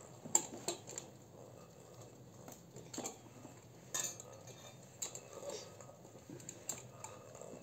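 Quiet, scattered clicks and clinks of dishes being handled, spread irregularly through the stretch, as filling is taken from a plastic tub beside a metal tray.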